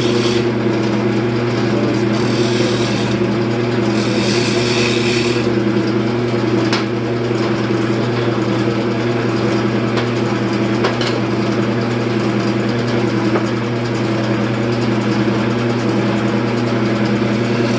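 Wood lathe motor running with a steady hum while a turning tool cuts the spinning wooden bowl blank. Three short scraping passes come in the first five seconds, and a few faint ticks follow later.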